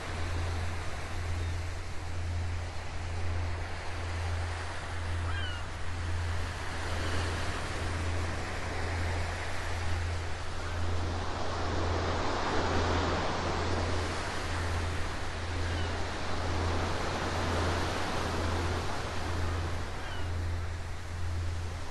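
Recorded ocean waves washing in a continuous surf hiss that swells and recedes, with one larger surge about midway. Under it runs a steady low hum that pulses about once a second.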